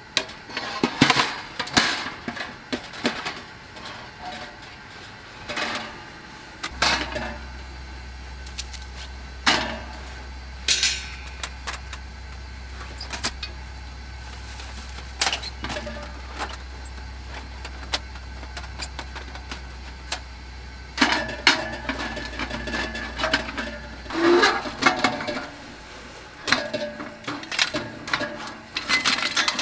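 Metal clanks and scrapes of a perforated steel charcoal starter and a kettle grill's wire grate being handled, scattered at first. From about two-thirds of the way in, pieces of charcoal rattle and clink against the metal in quick runs.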